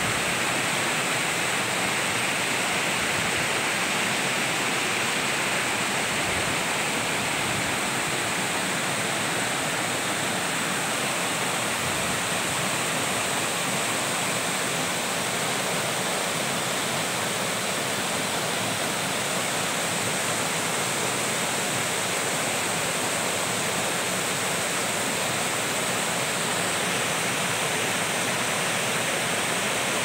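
Water of a small waterfall cascading over and between large boulders: a steady rushing noise.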